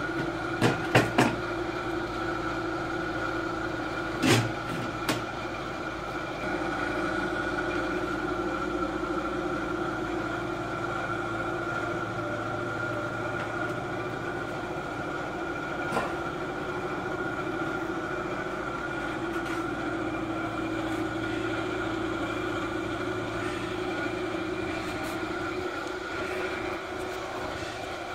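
Steady mechanical hum with two held tones. A few sharp metal clicks and knocks come from the steel frame of a traction bed being handled, a cluster about a second in, two more near four and five seconds, and one more much later.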